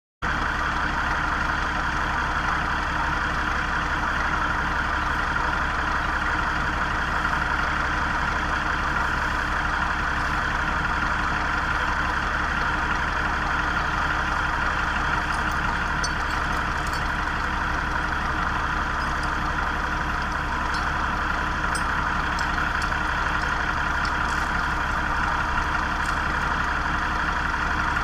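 A vehicle engine running steadily, with faint light ticks now and then in the second half.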